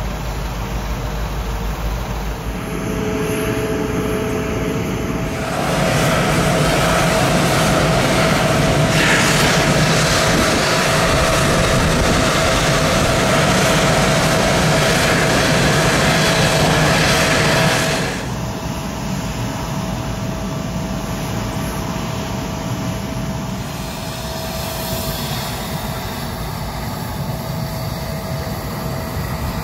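Jet aircraft noise on an airport ramp: a steady whine over a rushing hiss. It gets louder and hissier about five seconds in and drops back abruptly after about eighteen seconds.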